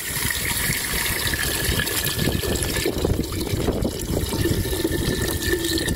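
Coconut milk poured in a steady, unbroken stream from a steel vessel into a clay pot, splashing and filling over the chicken inside.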